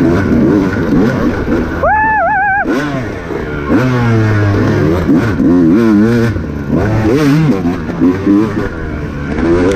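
Off-road motorcycle engine revving up and down over and over, its pitch rising and falling every second or so, with a brief sharp high-pitched rev about two seconds in.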